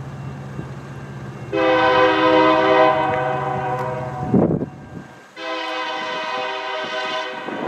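Air horn of Union Pacific SD70M diesel locomotive 5013 sounding two long blasts as part of a horn show: the first starts about a second and a half in over a low steady locomotive drone, then a short loud sweep and a brief break, and the second blast runs on to the end.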